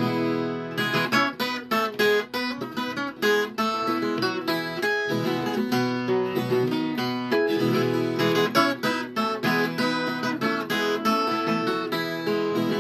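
Viola caipira, the Brazilian ten-string guitar with paired courses, played solo: a fast, rhythmic repique of strummed and picked notes.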